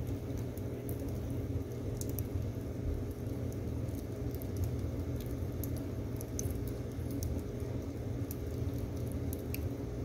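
Split firewood logs burning in a wood stove's firebox, crackling with scattered sharp little pops over a steady low rumble.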